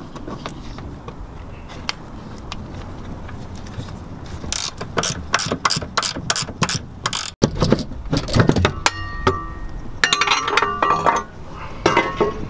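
Hand ratchet clicking in short quick runs, about four clicks a second, starting about four seconds in, with a few metallic clinks between the runs.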